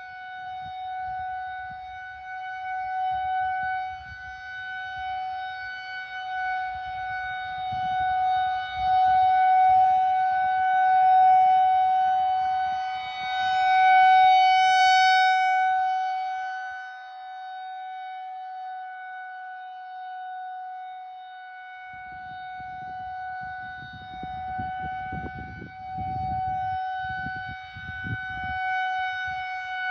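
Federal Signal 2001-130 rotating outdoor warning siren sounding its Alert signal: one steady, unwavering tone that swells louder through the middle and then fades back as the rotating horn sweeps past and turns away. A low rumble comes and goes underneath.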